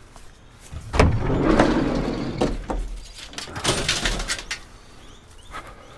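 A bang about a second in, then scraping and a run of metal clanks: rusty scrap steel being loaded into a van.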